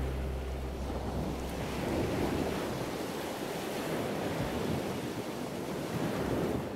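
Steady rushing of sea surf, a sea-sound effect; the last note of the music dies away in the first half-second.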